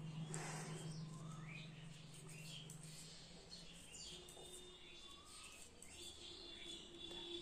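Faint bird chirping in the background: scattered short chirps and a few longer high notes near the end. A low steady hum fades out about three seconds in.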